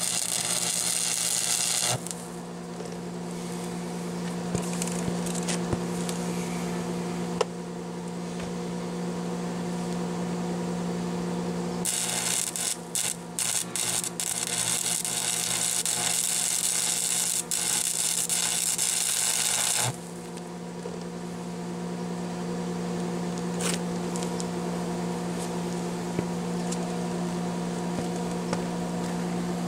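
Stick welding: the arc crackles and sizzles in two runs, for about the first two seconds and again from about 12 to 20 seconds in, sputtering and breaking briefly early in the second run. Under it the welding machine hums steadily.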